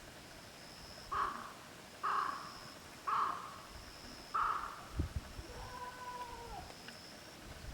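Goat bleating: four short calls about a second apart, then a longer drawn-out call that drops in pitch at the end.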